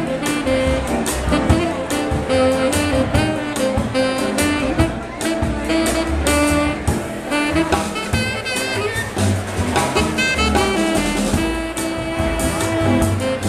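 Live jazz from a small band: a tenor saxophone playing a melodic line over a drum kit keeping time.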